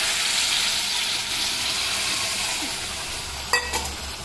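Boiled green peas and their cooking water poured into hot, oil-separated masala in a steel kadai, setting off a loud sizzle that fades slowly. About three and a half seconds in comes a short metallic clink of steel on steel.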